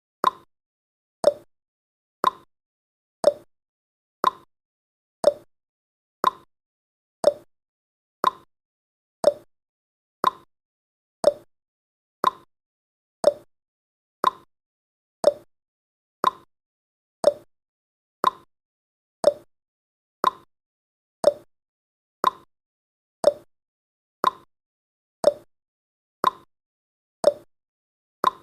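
Clock-style ticking sound effect of a countdown timer: one short, sharp tick each second, evenly spaced.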